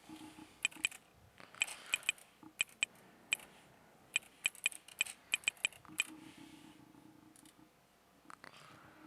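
Sharp, irregular clicking from working a computer, the clicks coming singly and in quick clusters of two or three.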